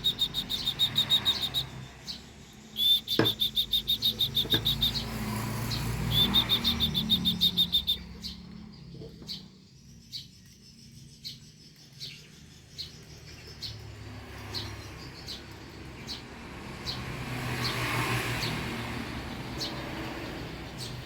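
Rapid, high, pulsed chirping trills in three runs of about two seconds each, made to call a bird in, followed by scattered short bird chirps.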